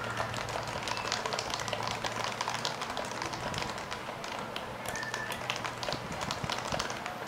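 Typing on a Topre-switch keyboard: a rapid, continuous run of keystrokes, several a second.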